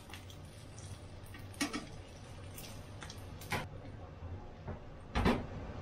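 Spatula and frying pan handled at the stove: a few separate light knocks and clicks over a faint steady hum, the loudest knock about five seconds in.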